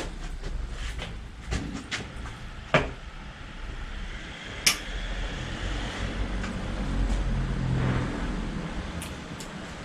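Handling noises at a bicycle repair bench: scattered clicks and knocks of metal parts and tools being picked up and set down, the sharpest about three seconds in. A low rumble swells in the second half.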